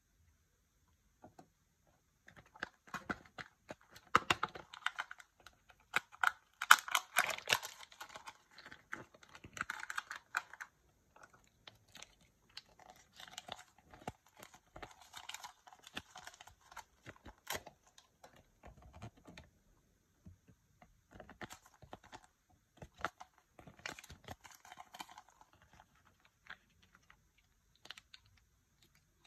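Thin plastic toy wrapper crinkling and tearing open, mixed with light clicks of small hard plastic toy pieces being handled and snapped together, in three spells with short pauses between.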